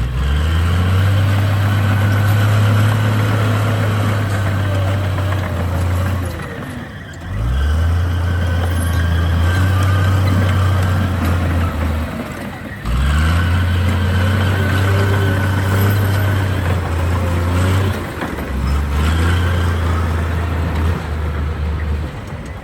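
Heavy diesel engine of an earthmoving machine, revving up hard four times with short drops in engine speed between, as the machine works under load.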